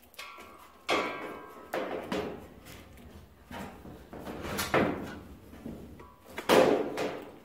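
Plastic gas hose being pushed and twisted by hand onto the metal hose barb of a Vinigas kitchen gas regulator: a series of rubbing, scraping handling noises in about six separate bursts, the loudest about six and a half seconds in.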